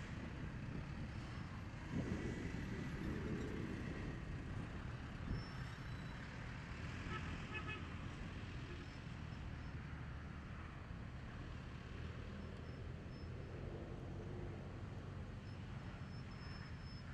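Outdoor ambience of distant road traffic: a steady low rumble that swells for a couple of seconds about two seconds in.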